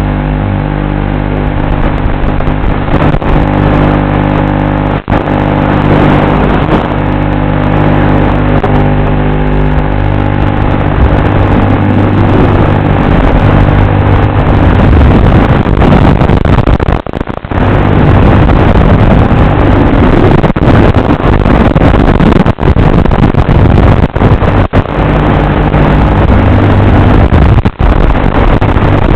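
FPV racing drone's electric motors and propellers running loud, their steady pitched whine stepping up and down with the throttle, with rushing air noise.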